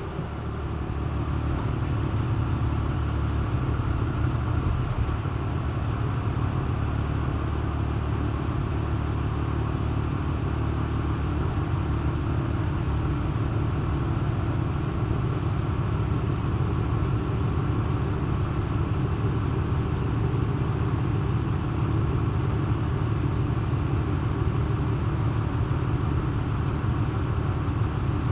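A motor running with a steady low rumble that builds up in the first second and then holds evenly.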